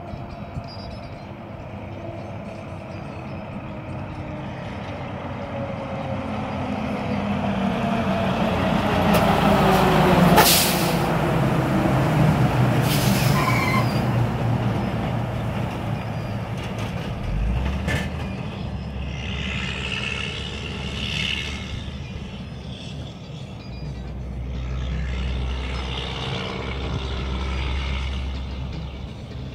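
Mack road-train truck's diesel engine approaching and passing close by, its engine note sliding lower as it goes past and loudest about ten seconds in. There are two short sharp air-brake hisses around the pass, then the rumble of the engine and the trailers fades and swells as the rig drives away.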